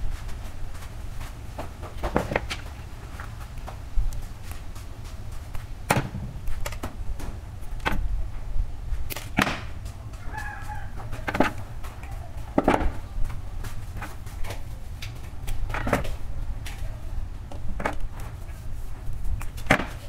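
Hands working stiff copper wire jumpers onto plastic miniature circuit breakers: scattered clicks, taps and rustles over a low steady rumble. A faint pitched call sounds briefly about ten seconds in.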